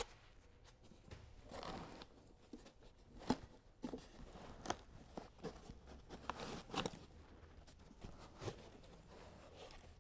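Faint handling noise: foam packing rubbing and scattered light knocks as a CAMETV 7800 3-axis gimbal is worked out of its tightly packed foam-lined case.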